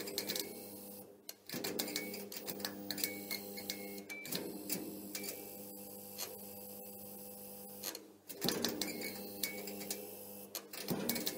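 Flickering neon-sign sound effect: a steady electrical hum with dense, rapid clicking and crackling, which drops out briefly about a second in and again near eight seconds.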